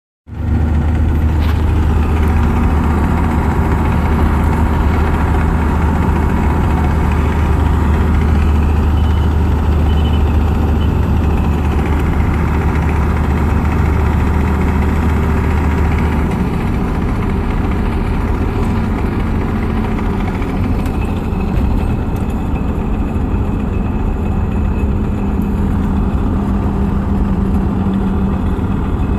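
Engine idling with a tick/click noise from an NV4500 five-speed manual transmission. The tick follows engine speed in neutral and transmission speed in gear. The deep steady hum changes about halfway through.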